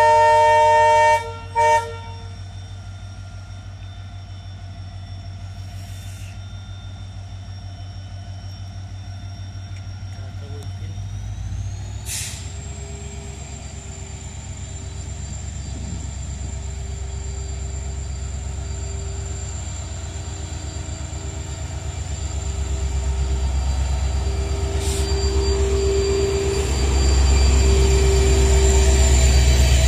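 Twin-cab WDP4D diesel-electric locomotive with an EMD two-stroke engine pulling away with a passenger train. Its horn sounds loudly and cuts off about a second in, then gives a short toot. After that the engine's low throb builds as the locomotive accelerates. A high whine rises in pitch about twelve seconds in, and the engine gets loudest near the end as the locomotive passes close by.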